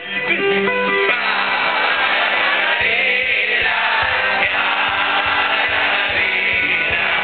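Live accordion and acoustic guitar playing a song with held accordion chords, while many voices sing along together.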